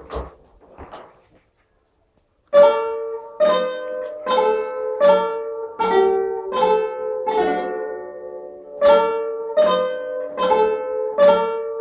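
Lithuanian kanklės, a plucked zither, played by hand: after a short pause, a slow melody begins about two and a half seconds in, each plucked note ringing on, roughly one note every 0.8 seconds.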